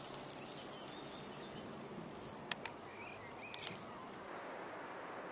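Quiet outdoor background hiss with a few light clicks and short chirping bird calls, most of them about three seconds in.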